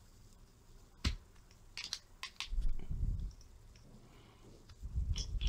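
Pliers gripping and bending the sheet-metal tabs that hold a dryer timer's small motor in place: a sharp click about a second in, a few quick clicks, then two spells of low thudding and creaking as the tabs are forced.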